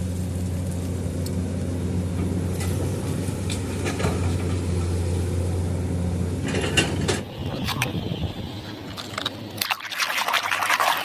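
A steady low motor hum that cuts off about seven seconds in, followed by scattered knocks and a rushing noise near the end.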